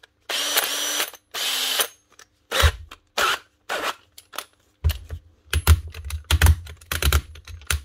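Makita cordless drill's motor run twice in short bursts, then the keyless chuck twisted hard by hand, clicking and knocking as it ratchets without opening: the chuck is seized.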